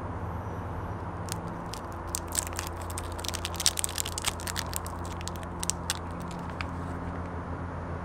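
Thin clear plastic snack wrapper crinkling and crackling as it is peeled off a hawthorn roll, a quick run of crinkles from about a second in until near the end. A steady low hum runs underneath.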